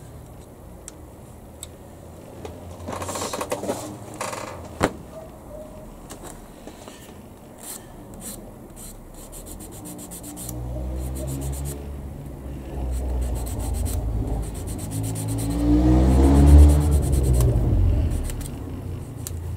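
Small grey plastic model-kit parts being cut from the sprue and then cleaned up by hand: light ticks, a sharp snip a little under five seconds in, then repeated rubbing and scraping strokes. A low rumble swells in the second half and peaks near the end.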